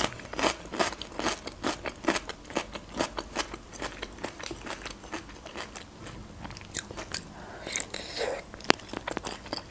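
Close-miked chewing of fresh cucumber, a quick run of crisp crunches. Near the end comes a bite into a boiled khinkali dumpling.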